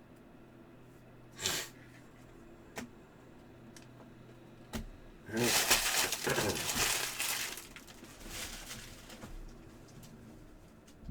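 Trading-card packs being handled: a short rustle, a couple of light taps, then about two seconds of loud crinkling and rustling of a foil pack wrapper that tails off into softer handling.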